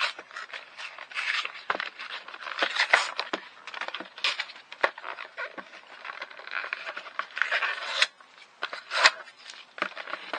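Paper-and-plastic knife packaging being opened by hand: a paper sleeve is pulled off a plastic case, with continuous rustling, scraping and crackling and many small sharp clicks.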